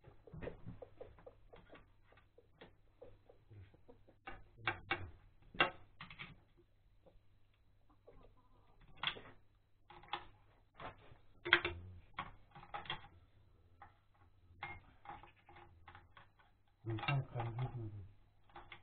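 Irregular clinks and taps of hand tools and metal parts on a walk-behind tractor's gearbox as it is reassembled, with hens clucking at intervals.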